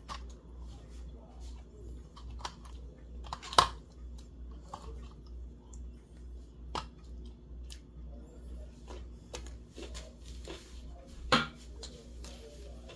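Fried chicken being eaten with the fingers: scattered small crackles and clicks of chewing and pulling meat off the bone, with two louder sharp clicks, one a few seconds in and one near the end, over a steady low hum.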